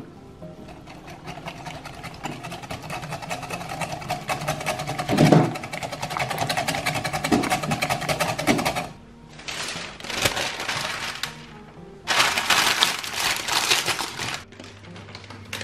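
A wire whisk beating batter in a glass bowl, a fast rattling scrape of strokes against the glass for most of the first nine seconds. Then parchment paper crinkling loudly as it is pressed into a baking dish, in two spells near the end.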